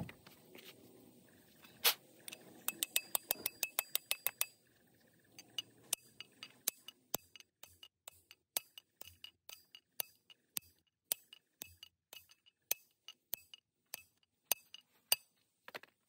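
Hammer striking a steel drift to drive a tapered roller bearing onto the hub of a front-axle differential case: sharp, ringing metal taps. A quick run of light taps comes about three seconds in, followed by steady blows about two a second.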